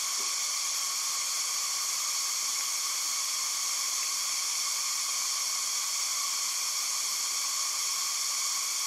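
Steady, high-pitched forest insect chorus, an even hiss that does not change throughout.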